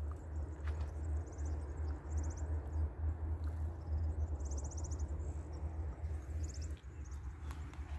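Steady low wind rumble outdoors, with a small bird's short, high, rapidly pulsed trills repeating every second or so.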